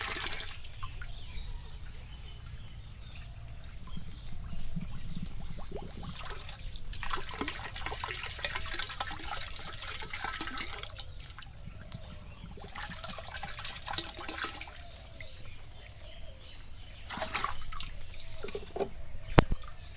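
Water sloshing and pouring in a container in several bursts of a few seconds each, as plain water is stirred and mixed for the broilers' drinking water. A single sharp click sounds near the end.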